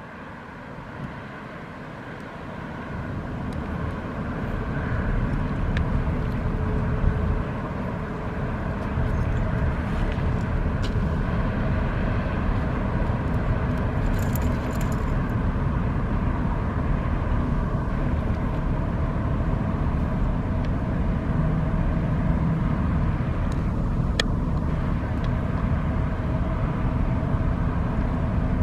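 Steady low engine rumble of a large passenger ferry manoeuvring, with a faint steady hum, growing louder over the first few seconds and then holding.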